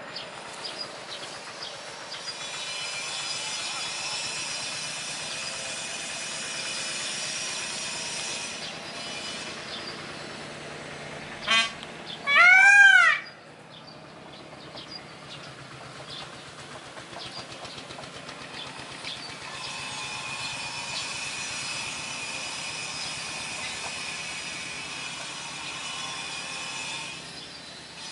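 Indian peafowl calling about halfway through: a short cry, then a longer, louder scream that rises and falls in pitch. A high, steady buzzing chorus comes and goes in the background.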